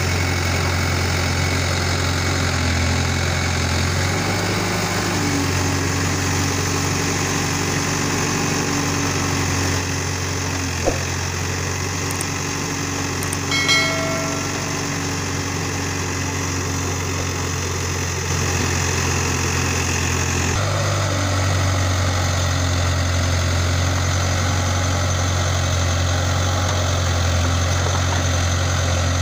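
Backhoe loader's diesel engine running steadily at low revs as the backhoe works in mud. A short ringing chime sounds about halfway through, and the engine note changes abruptly about two-thirds of the way in.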